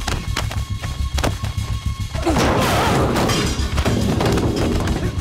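Action-film fight soundtrack: dramatic background music with sharp punch and thud sound effects, then a long crash of smashing objects about two seconds in.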